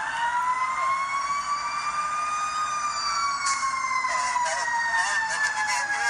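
Several emergency-vehicle sirens wailing together, their slow rising and falling pitches crossing one another. A sharp click comes about three and a half seconds in.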